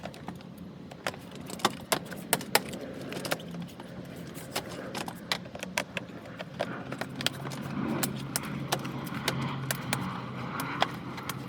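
Irregular light clicks and clatter of small hard parts being handled, many in quick succession, over a steady low hum.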